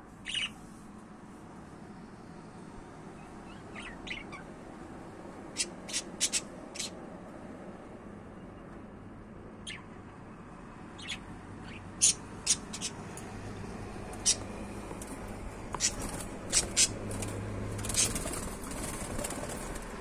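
Pet budgerigars in a cage giving short, sharp chirps and clicks, scattered singly and in small clusters, coming more often in the second half.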